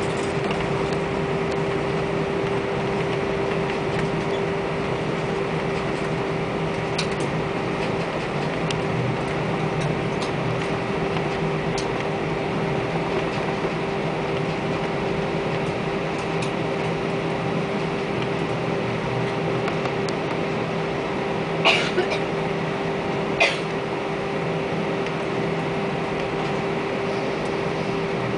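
Airbus A320 cabin noise: a steady hum with a constant drone tone running through it. Two short knocks come about a second and a half apart, a little past two thirds of the way through.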